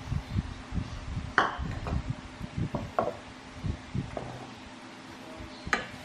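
A bowl and a plastic spatula knocking and clinking against a nonstick frying pan while batter is poured in and stirred: a few sharp clinks, the loudest about one and a half seconds in and another near the end, over soft low knocks.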